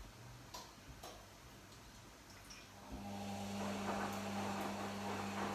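A few light clinks at the kitchen sink, then from about three seconds in a steady rush of tap water running into the sink, with a low steady hum under it.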